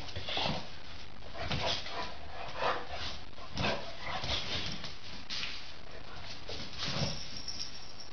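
Dog giving short, excited barks and yips with some whining, in short bursts about once a second.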